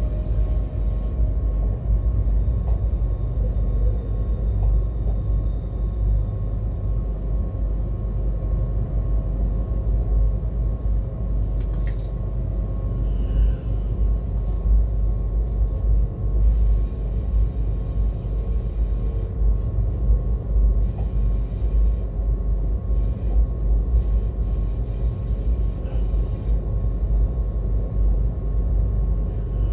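Cab interior of a Siemens Vectron BR 193 electric locomotive under way: a steady low rumble of the running gear on the track with a constant hum. Stretches of higher hiss come and go in the second half.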